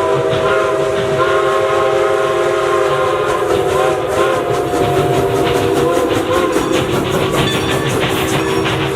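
A train horn held on a chord of several steady tones over the clatter of a train's wheels, the regular clicks of the wheels over rail joints becoming plainer in the second half.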